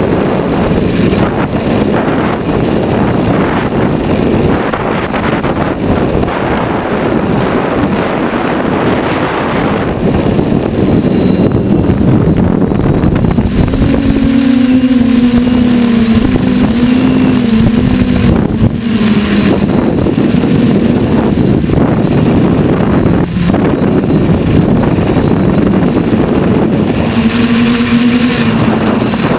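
TBS Discovery quadcopter's electric motors and propellers running in flight, with heavy wind rush on the onboard camera's microphone. A motor whine wavers up and down in pitch about halfway through and again near the end as the throttle changes.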